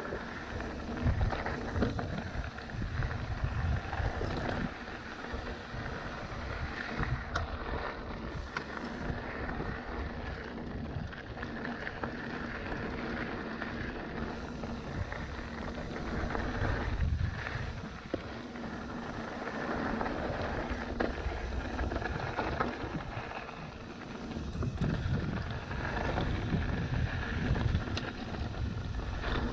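Mountain bike being ridden along a dirt trail: wind buffeting the microphone in a steady low rumble, with tyre noise and an occasional knock as the bike goes over bumps.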